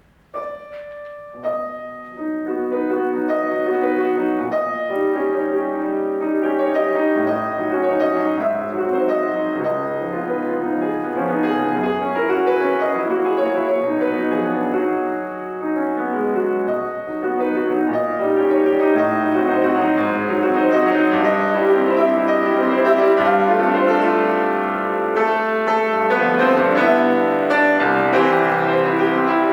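Solo piano playing classical music. After a brief silence a piece begins with a few separate notes, then builds within about two seconds into a full, flowing texture of many sustained notes.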